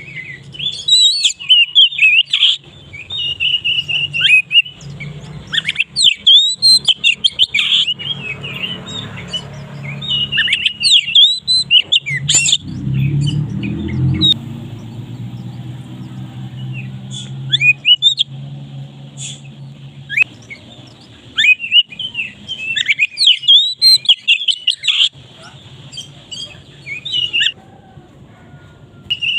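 Oriental magpie-robin (kacer) singing loudly and clearly: bursts of quick, varied whistles, chirps and glides, broken by short pauses, with a low hum underneath.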